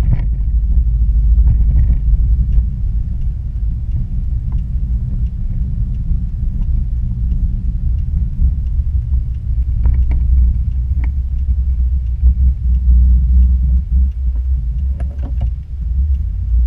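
Steady low rumble of a Dodge Ram pickup's engine and exhaust, heard from inside the cab while driving, with a few faint clicks.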